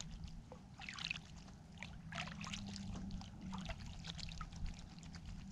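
Small splashes, drips and trickles of water in an ice-fishing hole as fishing line is handled by hand at the hole, in irregular crackly bursts over a steady low hum.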